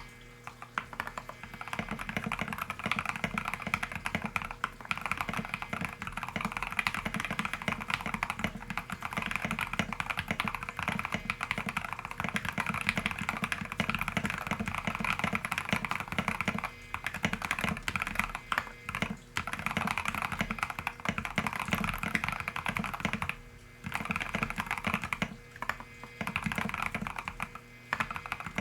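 Steady fast typing on a heavily modded RK61 Pro mechanical keyboard, fitted with C3 Tangerine linear switches (lubed and filmed), lubed plate-mount stabilizers, foam and tape mods and MA-profile keycaps. The keystrokes run dense and even, broken by a few short pauses in the second half.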